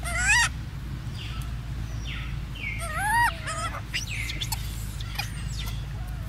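Infant macaque giving high, wavering coos, the loudest right at the start and about three seconds in, with shorter calls around four to five seconds. Short bird chirps sound over a steady low hum.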